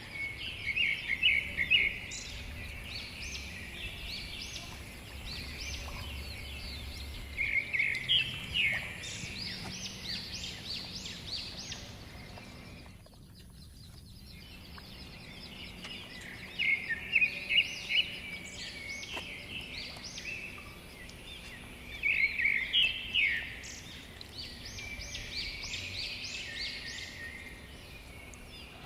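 A songbird singing short phrases of rapid high chirps, repeated every few seconds, over a faint low background rumble.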